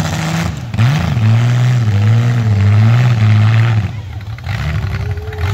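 Engines of compact demolition-derby cars revving as they churn through mud, the pitch rising and falling with the throttle.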